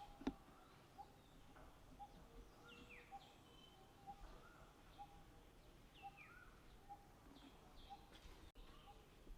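Faint outdoor birdsong: a short note repeated about twice a second, with a few higher chirps that slide downward. There is one sharp click just after the start.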